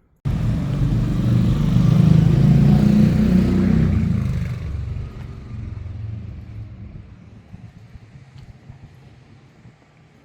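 A motor vehicle engine rumbling loudly close by, then fading away over several seconds as it moves off. The sound cuts in suddenly at full strength.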